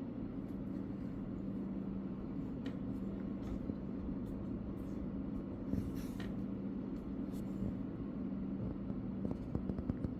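Light scratching, rustling and tapping, as of cats playing in a cardboard box, over a steady low hum. A brief rustle comes about six seconds in, and a quick run of taps near the end.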